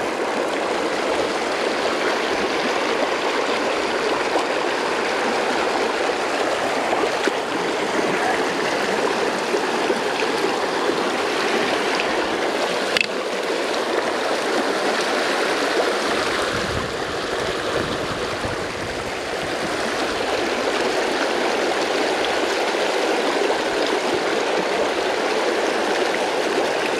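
A small creek running steadily over rocks, its water rushing close by. A single sharp click sounds about halfway through.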